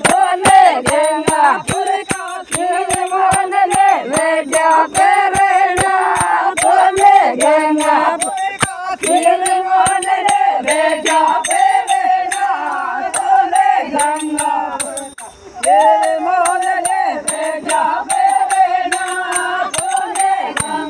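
Women singing a Meenawati folk song together, one wavering melody, over a steady beat of sharp metallic strikes about two to three a second. The singing drops out briefly about 15 seconds in, then picks up again.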